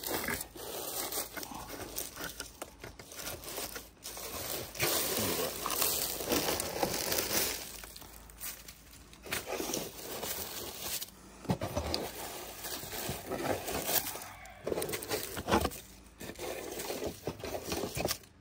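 Dry leaves and gutter debris crinkling and rustling as a hand grabs and pulls them out of a roof gutter, with occasional sharp knocks.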